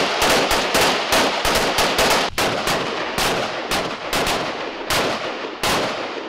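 Two rifles firing a rapid, irregular string of shots, about three or four a second, often overlapping, each followed by a short echo.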